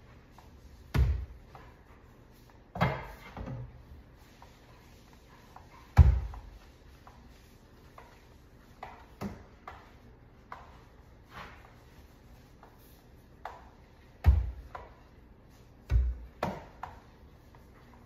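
Irregular thuds and knocks from somewhere in the house, about seven of them, the loudest about six seconds in and again near fourteen seconds, with quiet room tone in between.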